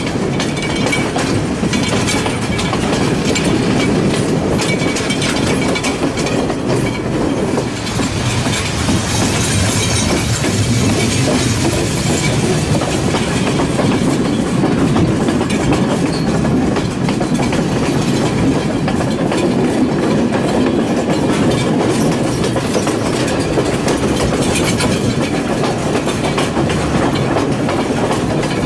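Passenger train running, heard from on board the carriage: a steady rumble and rattle, with the wheels clacking over the rail joints.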